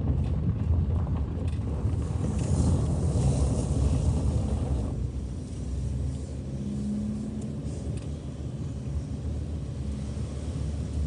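Car driving along a bumpy road, heard from inside the cabin: a steady low rumble of engine and tyres, louder and rougher in the first half and easing off about halfway through.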